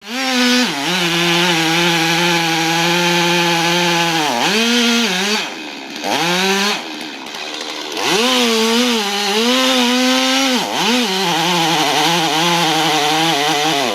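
Chainsaw running at high revs and cutting into wood. Its pitch drops and climbs back several times as the throttle eases off and opens again, with a lower, quieter stretch in the middle.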